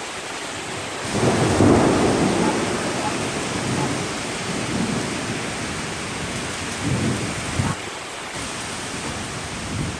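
Heavy rain pouring steadily in a thunderstorm. A loud rumble of thunder swells about a second in, and a shorter rumble comes near the end.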